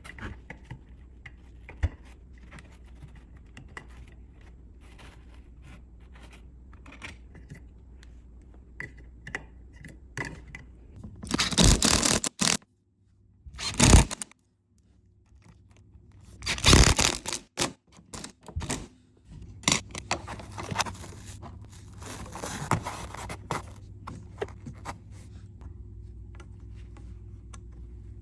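Intermittent scraping and handling noises, with a few louder bursts of scraping about a third of the way in and again past the middle, over a low steady hum and scattered small clicks.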